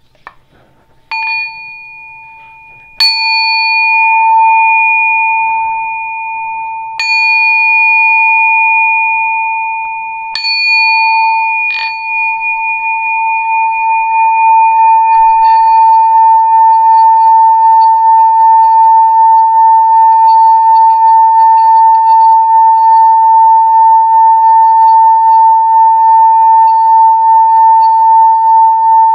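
Metal singing bowl struck four times with a wooden mallet, each strike ringing on. About twelve seconds in, the mallet is run around the rim and the bowl sings a steady, gently pulsing ring that swells and then holds.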